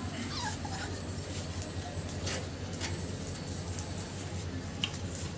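American bully puppies whimpering in a pen, a short high whine falling in pitch in the first second, with a few scattered soft knocks as they move about over a steady low hum.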